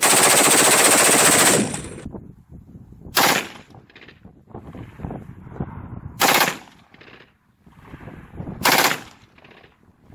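An HK21-pattern 7.62x51mm belt-fed machine gun (an HK91 with a Vollmer HK21 conversion kit) firing full auto. One sustained burst of about a second and a half, then three short bursts a few seconds apart.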